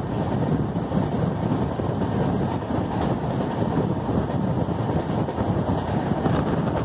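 Passenger train running, heard from inside the moving coach: a steady rumble of wheels on the track mixed with wind buffeting the microphone.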